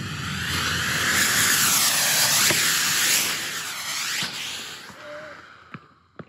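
Six F-class rocket motors on a sledgehammer head burning with a loud, steady jet-like hiss that wavers as the hammer is swung, then dies away over the last two seconds as the motors burn out. A couple of faint knocks come near the end.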